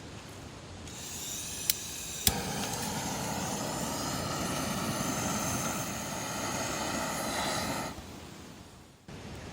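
Gas burner lit with two sharp igniter clicks. The second click catches, and the flame runs with a steady hissing roar for about five and a half seconds, then cuts off suddenly.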